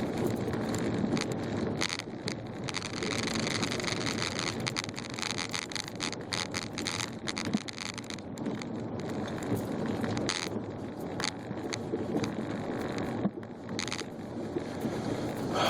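Volkswagen Passat driving slowly through deep, packed snow: a steady rumble of tyres and car with frequent short crunches and scrapes of snow.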